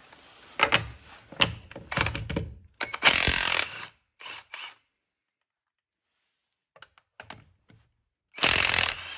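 Cordless 20V impact wrench with a 1/2-inch drive hammering car wheel lug nuts loose: a loud burst of about a second about three seconds in, two short blips just after, and another burst near the end. Before the first burst, knocks and clinks of the socket being fitted onto the nut.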